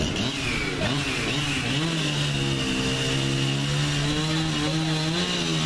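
A small engine running at a fairly high, steady speed. Its pitch wavers during the first couple of seconds, then holds steady, with a steady high-pitched whine above it.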